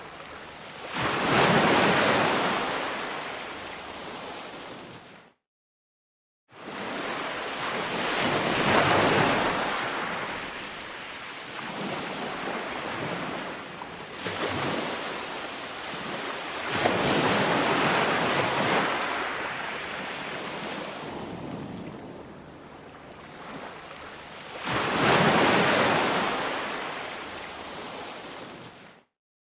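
Sea waves breaking on a shore, the surf swelling and ebbing about every eight seconds. The sound cuts off abruptly twice for about a second.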